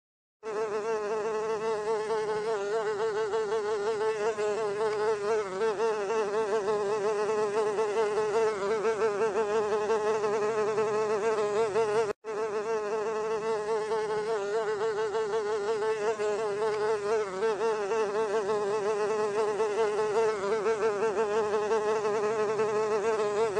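Housefly buzzing in flight: a steady drone whose pitch wavers constantly. It starts about half a second in and breaks off for an instant about halfway through.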